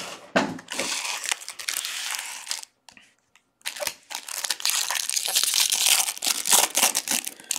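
Foil wrappers of 2019 Bowman Draft baseball card packs being torn open and crumpled in the hands: two spells of loud crackling and ripping, separated by a short pause about halfway through.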